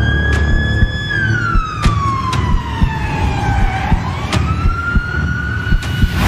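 Emergency-vehicle siren wailing slowly. Its pitch holds high, slides down over about three seconds, then climbs again about four seconds in. Underneath are a low rumble and a few sharp hits.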